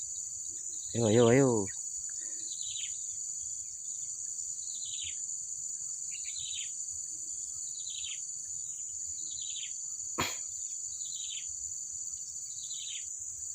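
Steady high-pitched insect drone, with a bird repeating a short downward-slurred call about once a second. A single sharp click comes near the end.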